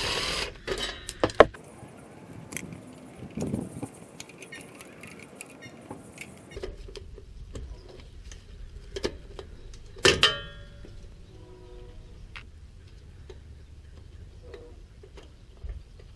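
Metal hand tools clicking and clinking against bolts and axle parts while the 10 mm bolt of the rear wheel speed sensor is being removed. There is a short rattling burst at the start and one sharp metallic clang about ten seconds in that rings briefly.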